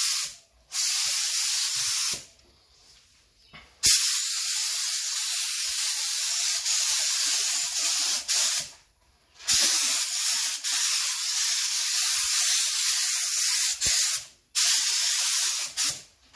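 Air-fed gravity-cup spray gun hissing in several bursts of a few seconds each, cutting off in short gaps as the trigger is released. It is laying down the second coat of clear.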